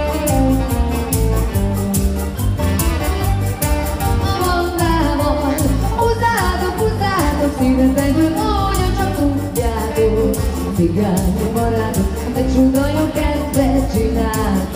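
Live band music with a steady beat: saxophone and keyboard playing a dance tune, with singing.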